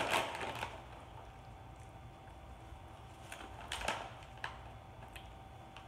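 A few faint, short crunches from a crisp pea cracker being bitten and chewed, mostly about three to four seconds in, over a faint steady hum.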